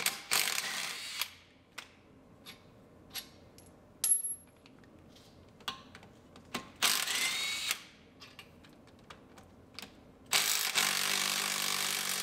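Cordless electric ratchet running in three short bursts as it spins out the hub-to-knuckle bolts on a Subaru Forester's front wheel hub. The last run is the longest and has a steady motor whine. Light metal clicks and clinks from the socket and bolts fall between the runs.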